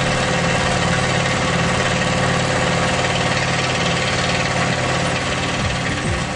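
Tormach CNC mill fly-cutting 6061 aluminum at a 50-thousandths-inch depth of cut with a single carbide-tipped fly cutter: a steady, loud machining hum with a fast repeating chatter from the interrupted cut. Music comes in near the end.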